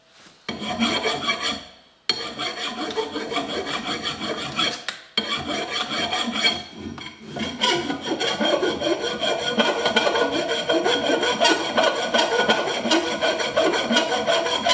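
Flat hand file rasping back and forth across a copper bus bar clamped in a vise, flattening its contact face. The stroking is continuous, with brief breaks about two and five seconds in.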